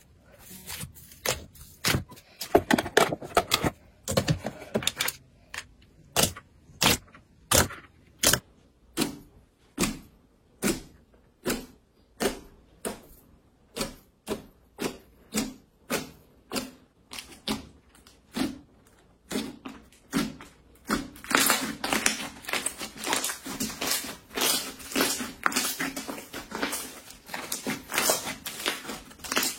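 A long series of sharp clicks or taps, about one and a half a second, becoming dense and rapid for the last third.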